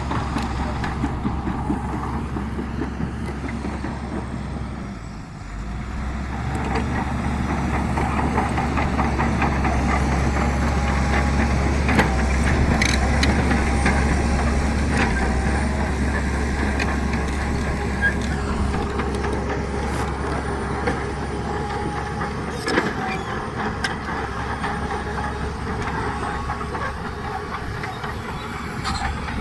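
Heavy diesel earthmoving machinery working: a steady low engine drone with irregular metallic clanks and knocks. The engine dips briefly about five seconds in, then works harder and louder for several seconds before settling.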